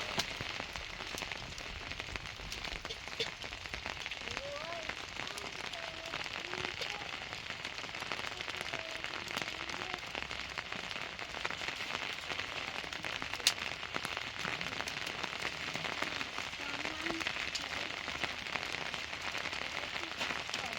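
Steady rain falling, with many small drop clicks and one sharp tap about thirteen and a half seconds in.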